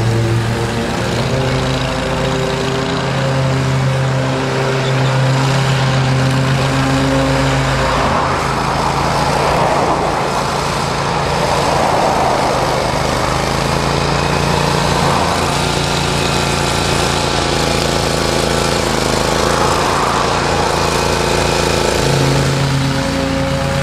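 Mower engines running steadily: a stand-on zero-turn mower, then a Scamper mower cutting through long grass. A rushing noise rises over the engine hum for several seconds in the middle and again briefly near the end.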